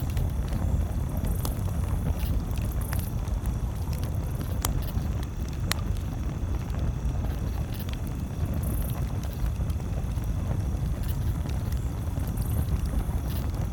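Campfire crackling with scattered sharp pops, the two loudest about four and a half and six seconds in, over a steady low rumble.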